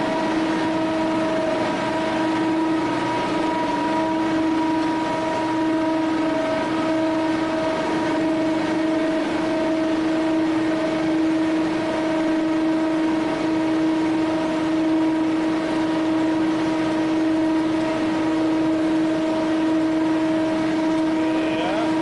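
Industrial vacuum loader pulling dark dust through its suction hose nozzle: a steady whine made of several fixed pitched tones over a rushing hiss, unchanging in pitch and level.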